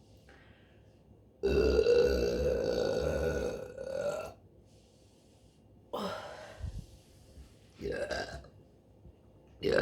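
A woman burping: one long burp of about three seconds, then three shorter burps about two seconds apart.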